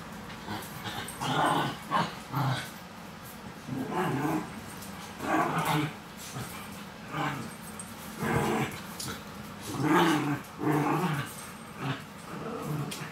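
Small dogs play-growling while they wrestle: short rough growls in repeated bursts, about one a second. The growls are play, not aggression.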